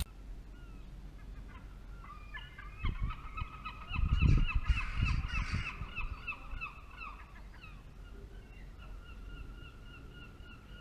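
A flock of birds calling, many short honking notes repeated rapidly and overlapping, thinning out toward the end. About four seconds in come a couple of seconds of low rumbling thumps, the loudest sound.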